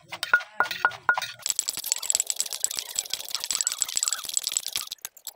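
A wooden pestle pounding green papaya salad in a clay mortar: a few separate knocks with a short ring from the pot, then a fast, dense clicking rattle for about three seconds that cuts off suddenly.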